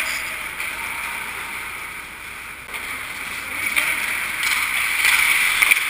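Ice skates scraping and carving across the rink ice, a steady hiss that fades a little and then swells toward the end, with a few sharp clacks of hockey sticks and puck.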